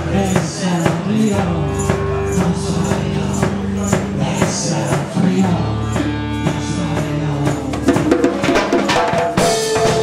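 Live band playing: drum kit, bass guitar and electric guitar with congas, and a woman singing into a handheld microphone.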